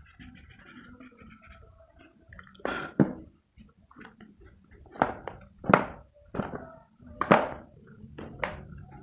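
Pencil strokes on paper: about six short, sharp strokes spread irregularly over several seconds.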